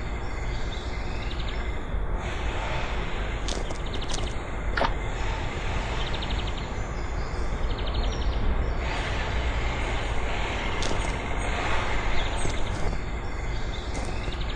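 Steady workshop background noise, with a few light clicks and some short, high chirping trills.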